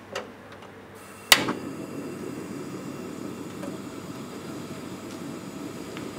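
Water heating on a gas burner in an aluminium pan with broccoli florets in it, not yet at a rolling boil: a steady low rushing hiss. A sharp click comes a little over a second in, after which the hiss is louder.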